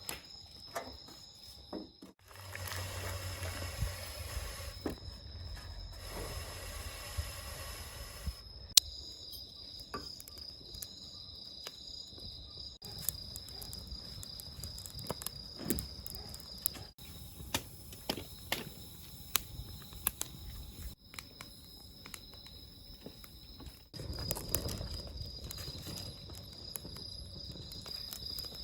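Wood fire crackling, with scattered sharp pops and one loud snap about nine seconds in, over a steady high-pitched insect trill. There are stretches of soft rushing noise.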